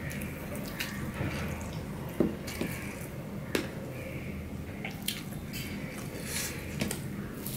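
Fingers mixing and squishing rice on a stainless-steel plate, with a few sharp clicks as fingertips touch the metal.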